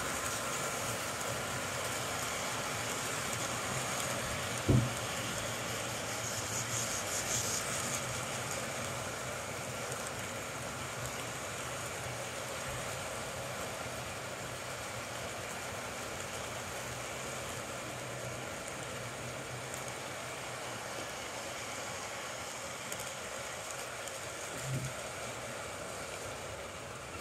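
Model freight train rolling along layout track: a steady whir of wheels running on the rails, with one sharp knock about five seconds in and a fainter one near the end.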